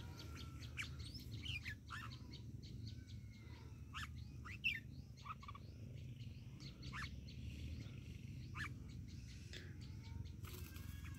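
Red-whiskered bulbuls calling: faint, scattered short chirps and whistled notes over a low steady rumble.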